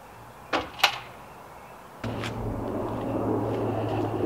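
Two sharp knocks at a van's rear door, about half a second apart. About two seconds in, a steady low hum with a haze of background noise starts abruptly.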